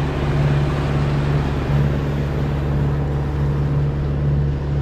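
Catamaran's engine running steadily under way, a constant low drone, with water rushing along the hull.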